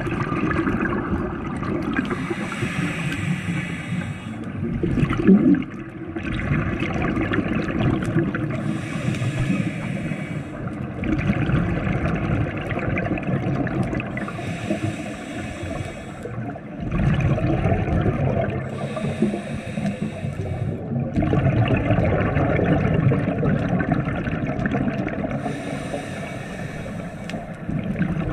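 Scuba diver breathing through a regulator underwater. Each inhale is a hiss, coming roughly every five seconds, and between them the exhaled air bubbles out as a low gurgling rumble.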